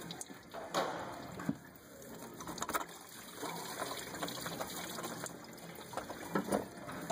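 Irregular small clicks and scrapes of metal as the loosened water pump of a Toyota 2.4L engine is worked free by hand, with liquid trickling, likely coolant running out as the pump comes away.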